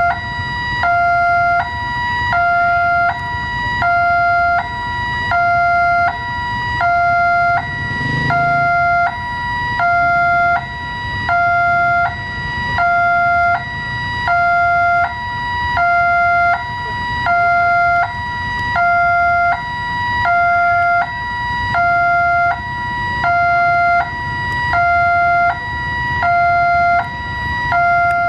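Electronic two-tone railway level-crossing alarm sounding, a higher tone then a lower tone repeating about every one and a half seconds, which warns that a train is approaching.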